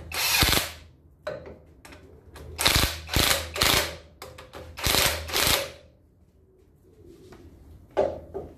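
Power impact driver hammering the swivel pin housing bolts of a Land Rover Series front axle tight, in about six short bursts, while the shim preload on the swivel is being set by trial.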